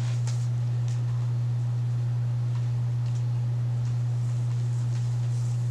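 A steady low electrical hum, with a few faint soft rustles of hair being handled.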